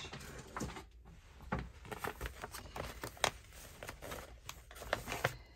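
Paper and card being handled and sorted through, with a scatter of light rustles and taps.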